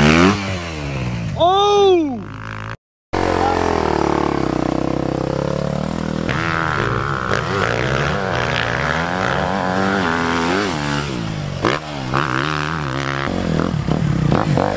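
Dirt bike engine running and revving over sand, its pitch rising and falling with the throttle, with one sharp rev up and back down about a second and a half in. The sound breaks off for a moment near three seconds in, then the engine carries on with changing revs.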